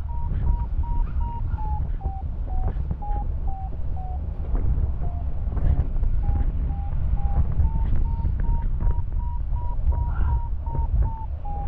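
Paragliding variometer sounding its climb tone: a steady series of short beeps, about three a second, whose pitch dips and then rises again as the rate of climb changes, a sign that the glider is in rising air. Wind buffets the microphone underneath.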